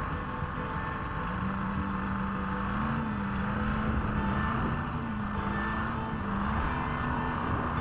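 Engine of an articulated log skidder running as the machine drives, its note rising a little about a second in and then wavering up and down with the throttle.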